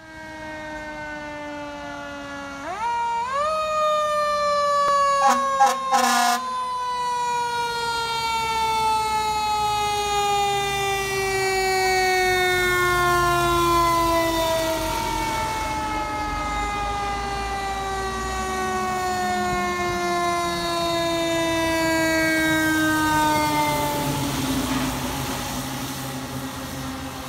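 Fire apparatus siren winding up about three seconds in, then falling slowly and steadily in pitch for about twenty seconds, the long wind-down of a mechanical siren. A few short sharp blasts cut in around five to six seconds in, and a low engine rumble sits under it as the trucks pass.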